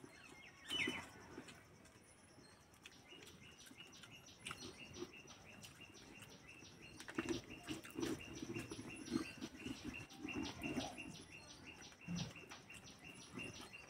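Faint birds chirping in short, rapidly repeated notes, with soft, quiet sounds of people eating rice by hand in between.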